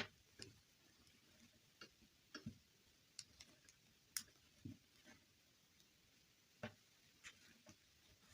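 Faint, irregular clicks and light taps of small objects being handled, about a dozen in all, with the sharpest at the very start and about four seconds in.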